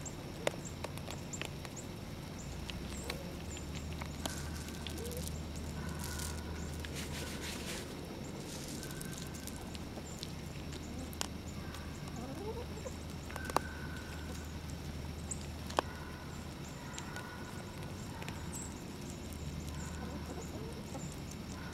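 White-tailed deer eating shelled corn from a hand: a few sharp crunches and some rustling in dry leaves, over a steady low hum with short bird calls now and then.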